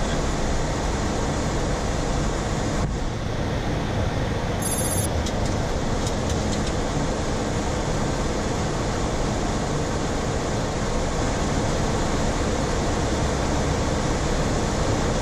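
Steady rushing airflow and engine noise inside a Boeing 737-400 flight deck on approach with flaps at 5. A brief high-pitched electronic chirp comes about five seconds in, followed by a few faint clicks.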